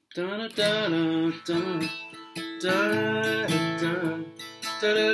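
Flatpicked acoustic guitar, capoed, playing a bluegrass lead lick: quick picked notes and strums ringing over one another.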